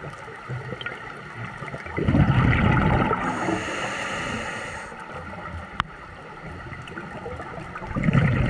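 Scuba regulator breathing heard underwater: exhaled bubbles rumble about two seconds in and again near the end, with a steady hiss of inhaling in between. A single sharp click past the middle.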